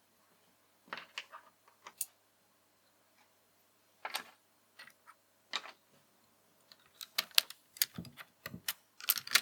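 Mechanical keyboard with Akko V3 Cream Yellow linear switches (a stock Glorious GMMK Pro with an aluminium top plate) being typed on, a clacky sound. There are a few scattered keystrokes at first, then quicker, denser typing from about seven seconds in.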